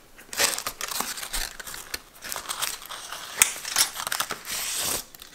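Parchment baking paper crinkling and rustling as hands unclip and work the ring of a springform cake pan loose, with a few sharp clicks, the loudest about three and a half seconds in.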